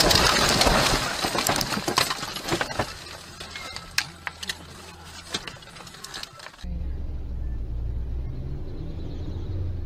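A car crashing off the road into bushes: a loud crunching, scraping noise dies away over the first couple of seconds into scattered clicks and rattles of debris and branches settling around the cracked windscreen. About two-thirds of the way through it cuts to the steady low hum of a car driving in city traffic.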